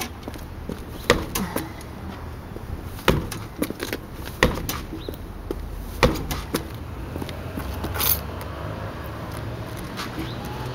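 Dull knocks of a sneaker kicking a flat car tire whose wheel is seized on the hub with the lug nuts off: about eight irregular blows a second or more apart, over a low steady rumble.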